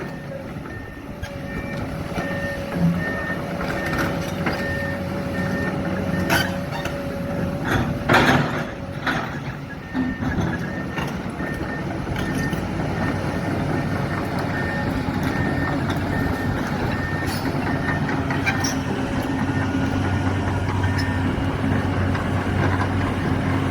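Heavy earthmoving machinery engines running steadily, with a reversing alarm beeping repeatedly through the first part and a few sharp clanks, the loudest about eight seconds in.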